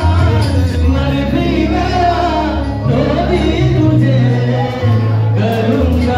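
A man singing into a microphone, amplified over a loud backing track with a deep bass line.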